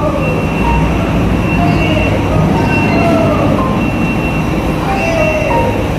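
Heavy truck tractor's diesel engine running in a ship's enclosed vehicle deck, under a loud steady din. A high beep repeats throughout, and several short squealing tones slide down in pitch over it.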